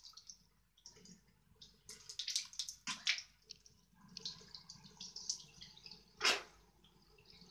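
Water running from a lever tap into a ceramic bathroom washbasin, with uneven splashing as hands scoop water to wash the face. A brief loud sharp sound stands out about six seconds in.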